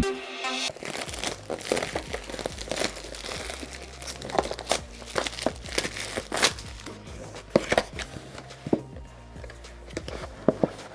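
Clear plastic shrink wrap crinkling and tearing as it is peeled off a cardboard product box, many short sharp crackles, followed by the box being opened. A short electronic music sting cuts off just as it begins.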